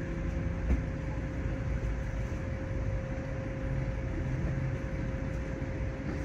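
Road traffic rumbling steadily as cars and a van pass slowly in the nearby lanes, with a faint steady hum underneath. There is a short knock under a second in.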